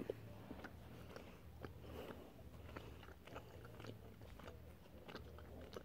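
Faint chewing of Airheads taffy candy, with scattered small mouth clicks over a low steady hum.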